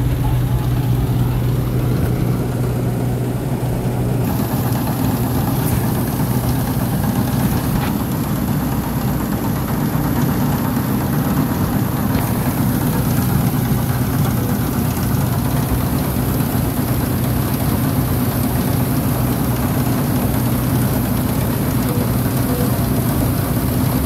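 Combine harvester's engine and threshing machinery running steadily while cutting wheat: a constant low drone, with a higher hiss joining about four seconds in.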